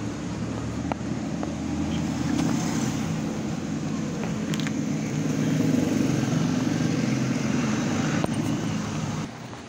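Steady hum of a motor vehicle engine running nearby, swelling a little midway, with a few faint clicks and rustles of fingers working in a helmet's fabric lining.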